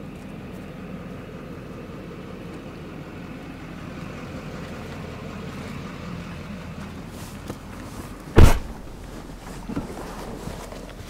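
Truck engine idling steadily, with a vehicle door shutting with a loud thump about eight seconds in and a lighter knock about a second later.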